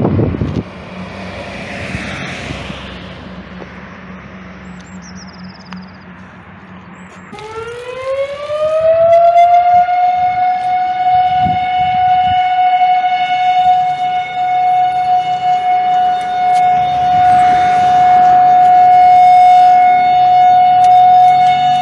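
A low engine hum, then a siren winds up about seven seconds in, its pitch rising for about two seconds before it settles into one steady, loud tone.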